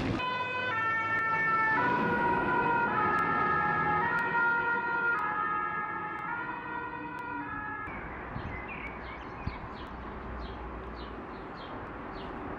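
Two-tone siren of a French fire engine, stepping back and forth between a high and a low pitch for about eight seconds. After that, a bird chirps over and over against outdoor background noise.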